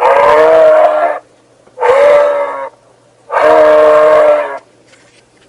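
Moose calling: three long calls with a steady pitch, the middle one shorter, separated by short pauses.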